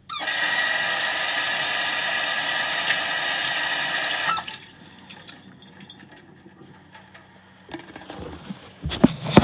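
Water running hard from a tap for about four seconds, then shut off abruptly. A few light knocks and clatters follow near the end.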